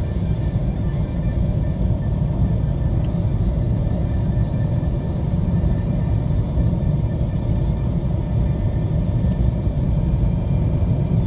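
Steady low rumble of road and engine noise from a 2017 Buick Regal cruising.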